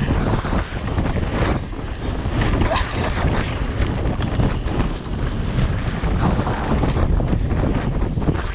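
Mountain bike descending a downhill trail at speed: wind buffeting the microphone over the rumble of tyres on dirt and stones, with frequent knocks and rattles of the bike over bumps.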